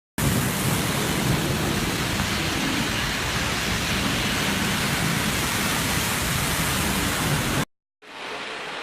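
Heavy rain pouring down in a loud, steady hiss. It cuts off abruptly near the end, and after a brief silence a quieter steady rain sound begins.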